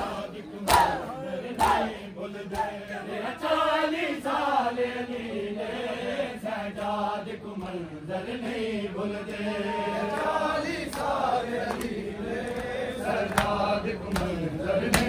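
Male mourners chanting a noha refrain in unison, with sharp slaps of chest-beating (matam) about once a second near the start and again near the end.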